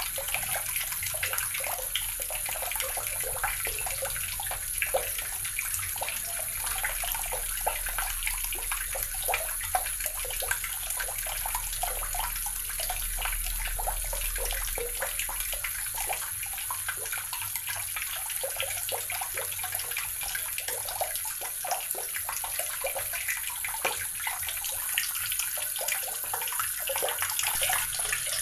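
Tap water running steadily into a basin, a continuous stream of splashing with many small irregular drops and spatters.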